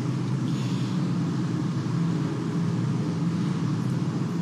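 A steady low hum of background noise with no distinct events.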